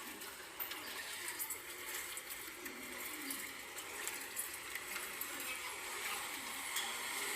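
Electrolux washing machine running with water noise: a steady wash of sound with scattered small clicks, getting a little louder near the end.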